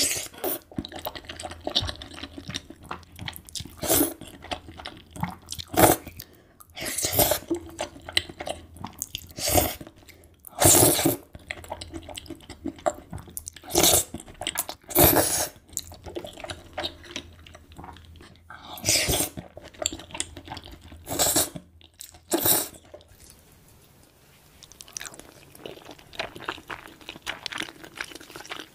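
Spaghetti in creamy sauce being slurped up and chewed: about ten loud, wet slurps, each under a second, with chewing between them. The mouth sounds are softer for the last few seconds.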